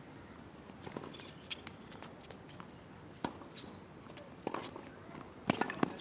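Tennis rally on a hard court: sharp hits of rackets striking the ball and the ball bouncing, one every second or two, with two loud hits close together near the end.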